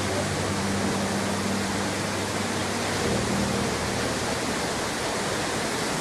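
Nachi Falls, a single straight drop of 133 m, making a steady, unbroken rush of falling water.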